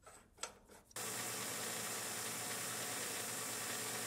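A few faint clicks of hands tightening the collet chuck's clamping nut, then a small metal lathe starts running about a second in, a steady even hiss with a low hum while the copper tube end is faced.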